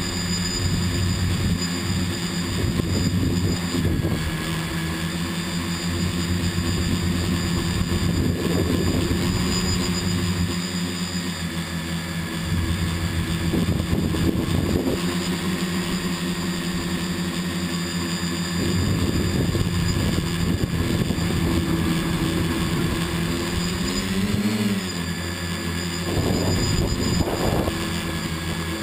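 Motors and propellers of a small radio-controlled camera aircraft running steadily in flight, a constant whine of several tones, with wind rumbling on the onboard camera. Near the end the pitch briefly dips and rises again as the motors change speed.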